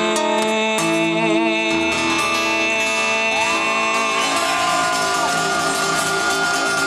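Live band playing an instrumental passage with guitar, long held notes bending up and down in pitch.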